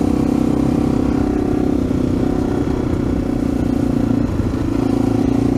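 AJP PR7's single-cylinder engine running steadily as the motorcycle rides along. Its note dips briefly about four seconds in, then picks up again.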